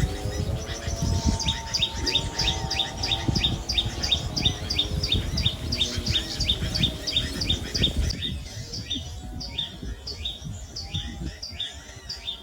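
Small bird chirping rapidly: a steady run of short, high, downward chirps at about four to five a second, thinning out and growing fainter after about eight seconds, over a low rumble that stops at about the same point.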